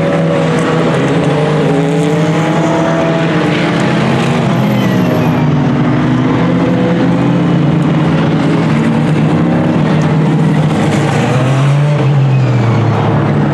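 Several endurance race cars running at speed past the trackside, their engine notes overlapping and sliding up and down in pitch as they pass one after another.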